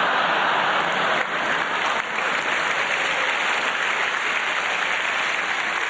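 Theatre audience applauding and laughing at a comedian's punchline: a dense, steady wash of clapping that eases a little near the end.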